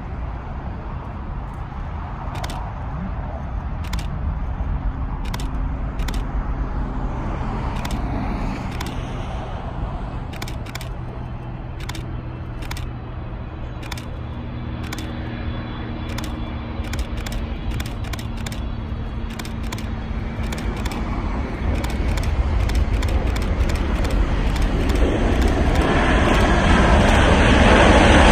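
Steady traffic noise from a busy multi-lane road. Over it, the jet engines of a landing Boeing 777-300ER (GE90 turbofans) rise steadily in the last several seconds, becoming the loudest sound as the airliner passes low and reaches the runway.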